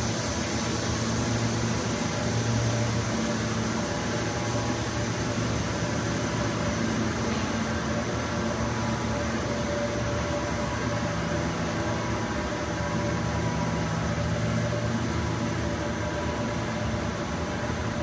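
Steady drone of the fans and blowers of a continuous furnace plant: an even machine noise with a low hum and a few held tones, unchanging throughout.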